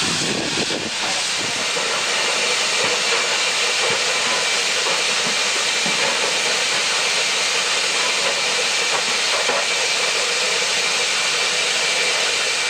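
Steady hiss of live steam escaping from beneath a standing NRZ class 16A Garratt steam locomotive, blowing down beside the wheels onto the ground.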